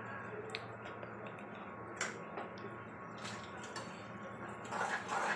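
Thick masala gravy in a steel pan on a gas stove, simmering with small scattered pops and bubbles as it comes to the boil. Near the end a steel spoon stirs through it, scraping against the pan.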